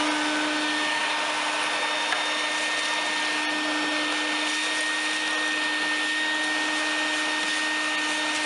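Vacuum cleaner running steadily, a constant hum and whine over the rush of air, its hose and crevice nozzle sucking debris off a car's bare metal floor pan.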